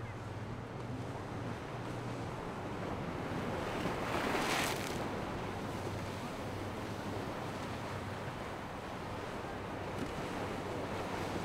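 Wind and choppy water rushing steadily, under the low steady drone of the triple Mercury 350 outboards on a passing Intrepid center-console boat. A louder whoosh comes about four and a half seconds in.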